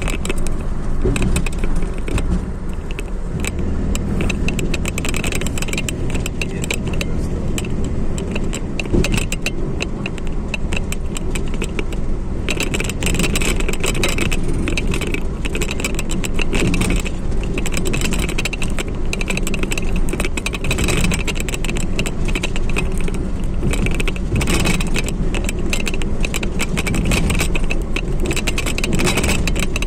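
Car driving in traffic, heard from inside the cabin: a steady engine and road rumble with a constant fine rattling over it.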